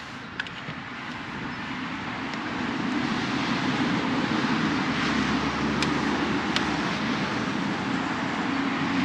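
Engine noise of a passing motor vehicle that grows steadily louder over the first few seconds and then holds, with a few faint clicks.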